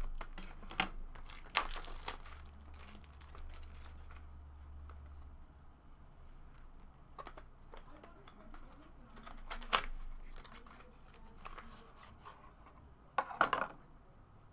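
A small cardboard trading-card box being torn open and handled: crinkling and tearing with scattered sharp snaps, the loudest about ten seconds in and a short cluster near the end.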